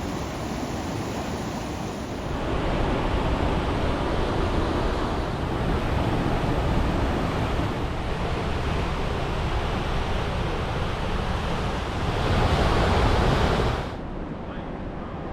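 Steady rushing noise, louder from about two seconds in, swelling for a couple of seconds near the end and then dropping off sharply.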